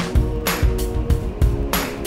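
Background music with a steady drum beat, cymbal hits and sustained notes.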